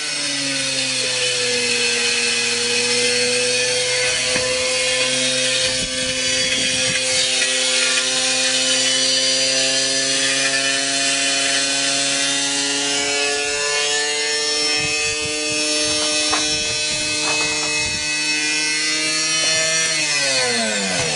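Washing machine spinning at high speed with a heavy iron block in the drum: a loud steady motor whine whose pitch creeps slowly upward, with a few knocks, then drops sharply as the spin winds down near the end.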